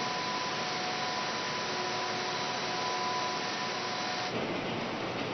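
Robotic rotary bell paint atomizer spraying a car body: a steady hiss with a faint steady high whine. About four seconds in, the whine stops and the hiss turns lower and rougher.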